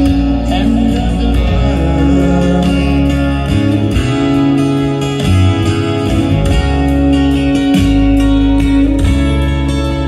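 Live band playing a song, with electric bass guitar and guitar over a steady beat.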